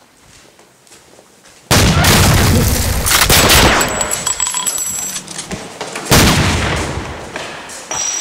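Gunfire sound effects: a sudden, loud volley of rapid shots starting about two seconds in, then a second loud burst about six seconds in that fades away.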